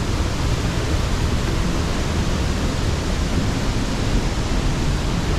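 Rushing water: a steady, loud rush from the waterfall and its stream.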